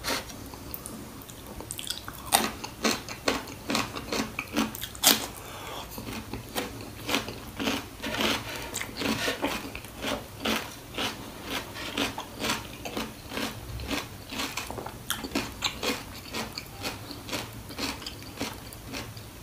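Close-up eating sounds: wet mouth smacks, bites and chewing of goat trotter curry with rice, a few sharp smacks a second starting about two seconds in.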